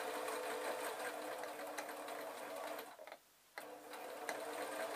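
Sewing machine stitching a seam in fleece at a steady speed. It stops briefly about three seconds in, then starts again.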